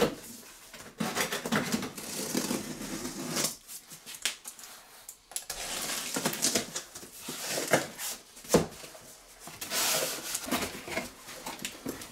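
A large cardboard box being handled and opened by hand: a thump as it is set down at the start, then repeated bouts of tearing and scraping of packing tape and cardboard flaps, with scattered clicks and knocks.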